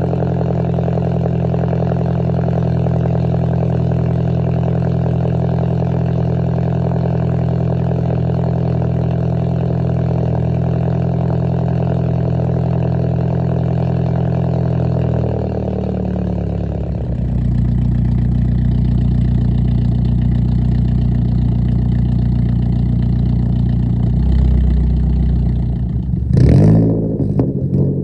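Ford Focus SE exhaust with a resonator delete and Skunk2 Mega Power muffler (stock manifold, still catted), idling steadily. About 15 to 17 seconds in, the idle changes to a lower, heavier note, and near the end the engine is blipped, its pitch rising and falling.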